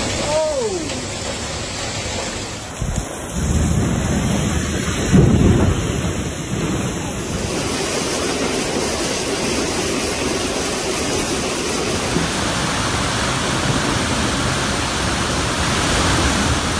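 Heavy hail and rain pelting down for the first few seconds. Then fast floodwater rushes through streets with a deep rumble, loudest about five seconds in, and the rushing goes on steadily to the end.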